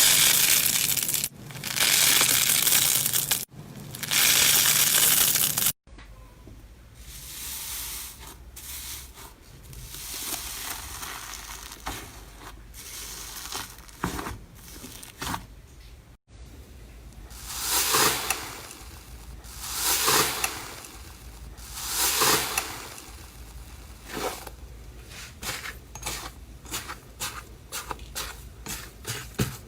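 Slime being squeezed and pressed by hand, crackling and popping. The sound comes as long crunchy bursts, then softer crackles, then a loud squish about every two seconds, breaking into quick small pops near the end.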